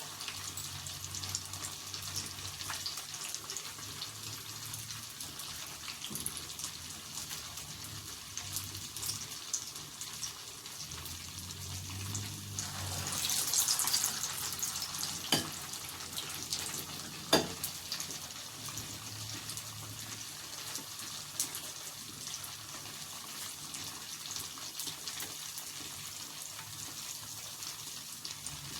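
Falafel frying in hot oil: a steady sizzle full of fine crackles. It swells louder about halfway through, and two sharp clicks follow a few seconds later.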